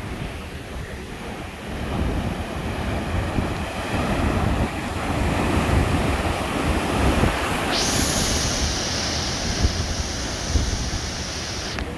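Heavy sea waves breaking on a rocky shore in strong wind, heard through a microphone partly covered by a hand, with low rumbling buffeting. About eight seconds in a sharp high hiss cuts in and lasts about four seconds.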